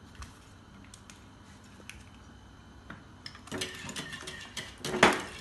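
A few faint clicks, then from about three and a half seconds in, a hand whisk beating eggs, sugar, lemon juice and yogurt in a glass bowl: a fast rattle of the whisk against the glass, loudest near the end.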